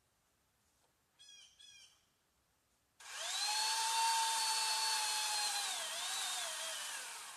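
Power saw motor run up to full speed and held for about four seconds, its pitch dipping and wavering a few times as it comes under load, then falling away as it winds down. Two short faint chirps come just before it.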